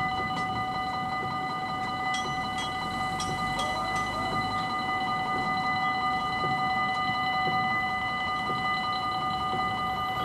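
Level crossing warning bell ringing steadily while the barriers are down, the warning that a train is due or passing.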